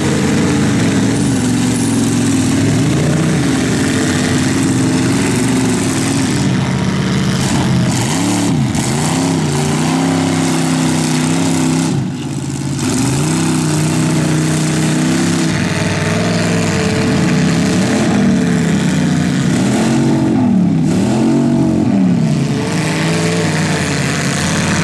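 Demolition derby car engines running hard, revving up and dropping back again and again, the pitch rising and falling every second or two, over the steady drone of other engines.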